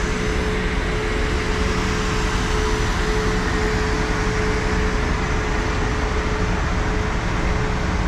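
MCI D4000 coach bus's diesel engine running: a steady rumble with a constant mid-pitched hum on top.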